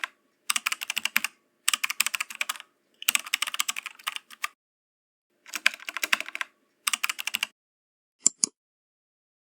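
Typing on a keyboard: rapid runs of key clicks in six bursts with short pauses between them, then two sharp single clicks near the end.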